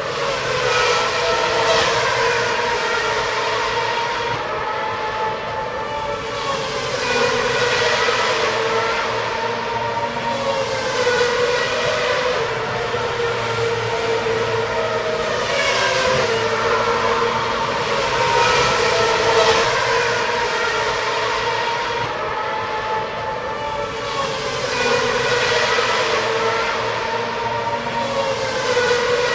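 Racing cars' high-revving engines running continuously, with cars passing one after another every few seconds, each pass falling in pitch, over a steady high engine drone.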